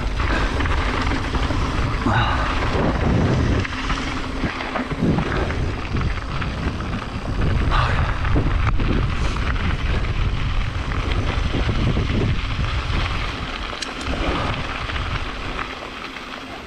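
Wind buffeting the microphone of a camera worn by a downhill mountain biker, over the tyres rolling on dirt and gravel and the bike rattling over bumps. It grows quieter over the last few seconds as the bike slows.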